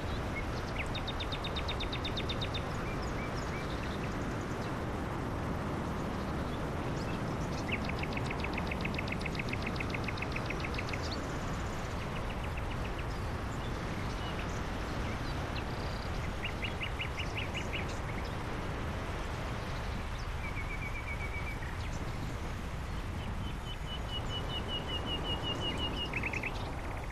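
Steady road and wind noise from a car driving, with songbirds giving rapid high trills several times over it.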